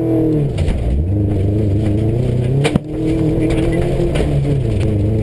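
Subaru rally car's flat-four engine heard from inside the cabin at speed: the engine note drops early on lift-off, then climbs again under power. A sharp crack with a brief dip in level comes about two and a half seconds in, and the engine pulls on afterwards.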